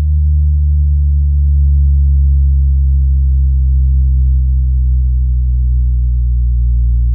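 Deep bass sound effect: a loud, steady low drone that holds unchanged throughout.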